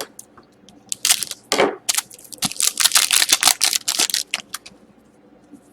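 A hockey card pack wrapper being torn open and crinkled, with quick crackling bursts of rustle that come thickest between about one and four and a half seconds in.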